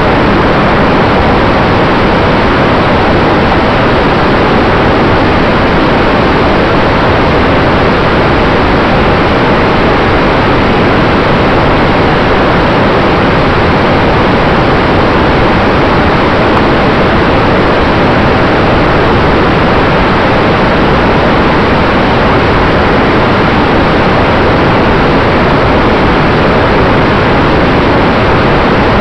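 Steady rush of wind buffeting the onboard action camera's microphone on an E-flite T-28 Trojan RC plane in flight, mixed with the plane's propeller and electric motor, with a faint steady tone running underneath.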